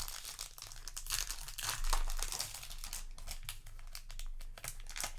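Crinkling and rustling of a foil Yu-Gi-Oh! booster pack wrapper and its cards being handled, in a run of quick rustles that is busiest about one to two seconds in.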